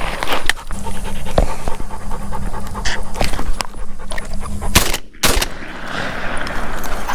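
Heavy panting, with irregular crackling and rustling like dry weeds being pushed through, and two sharp knocks about five seconds in.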